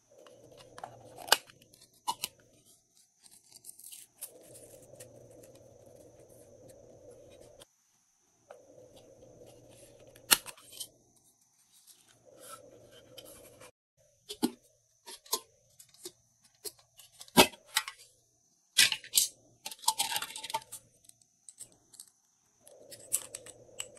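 Hands handling small plastic containers and slime decorations: scattered sharp plastic clicks and taps, with a short spell of crinkling and tearing plastic a little after three quarters of the way in.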